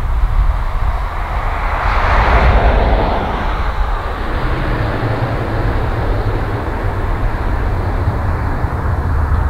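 Twin Pratt & Whitney PW150A turboprops of a Dash 8 Q400 air tanker on its landing rollout. The engine and propeller noise swells about two seconds in, then eases as the aircraft rolls away, over a steady low rumble.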